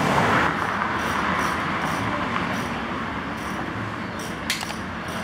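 Steady background street and traffic noise, with a single sharp click about four and a half seconds in.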